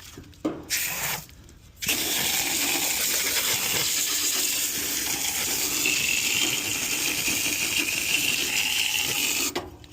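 Garden hose spraying water onto an air-conditioner condenser unit's coil and cabinet, a steady hiss that starts about two seconds in and stops shortly before the end.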